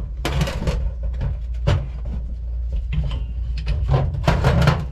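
Metal parts being handled and knocked together in a few short clattering bursts, over a steady low hum.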